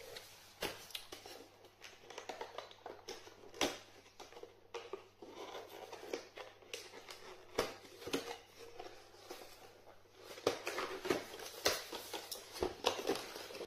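Close handling noises: irregular clicks, taps and rustling of objects being handled, busiest near the end.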